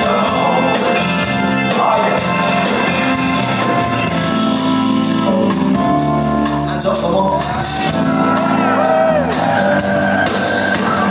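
A blues-rock band playing a slow song live in a concert hall, with singing over the band and regular drum hits.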